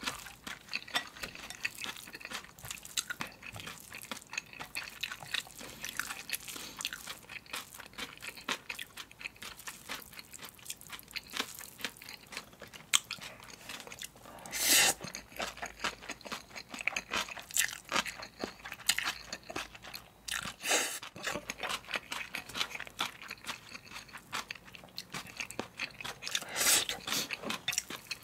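Close-miked eating of spicy mixed noodles with aged kimchi: steady wet chewing and crunching mouth sounds, with four louder, longer slurps of noodles spread through.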